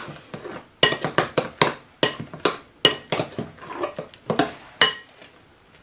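Metal spoon beating a thick ground-bean batter in a glass bowl, clinking sharply against the glass in irregular strokes about two or three a second, stopping shortly before the end.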